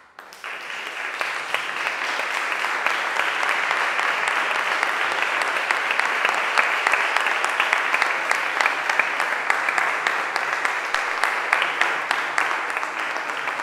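Audience applauding: the clapping breaks out all at once and holds steady as a dense patter of claps.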